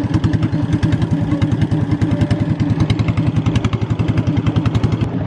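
A fishing boat's engine running steadily, with a rapid, even pulsing beat.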